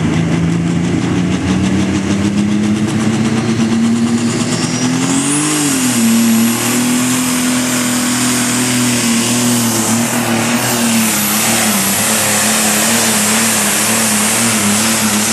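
Modified diesel pulling tractor running flat out under load while dragging the weight-transfer sled. Its engine note climbs in the first second, then holds steady, and a high turbo whistle joins about five seconds in.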